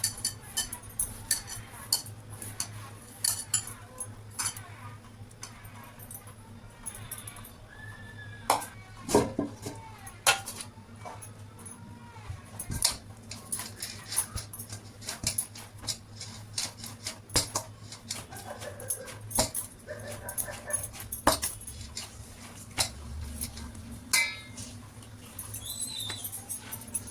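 Kitchen utensils and dishes clinking and knocking in irregular strokes over a steady low hum, with a few short animal calls in the background.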